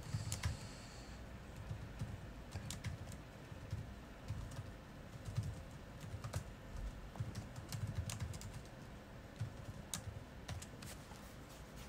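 Computer keyboard being typed on: irregular, quick keystroke clicks in short runs with brief pauses between them.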